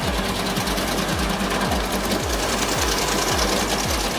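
Large crane-fed wood chipper chipping logs. It makes a loud, steady mechanical din with a rapid low pulsing, about three beats a second.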